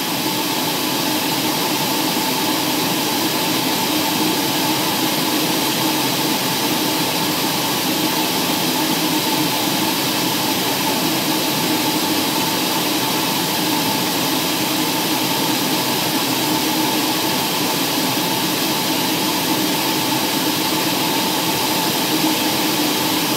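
Steady drone of an aircraft in flight heard inside the cabin: engine noise and airflow rushing, with a constant hum of several steady tones and no change in power.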